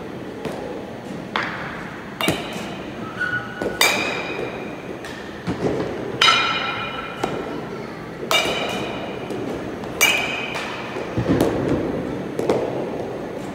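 Metal baseball bat striking pitched balls, about six hits spaced roughly two seconds apart, each a sharp crack followed by a ringing ping. Smaller knocks and clicks come between the hits.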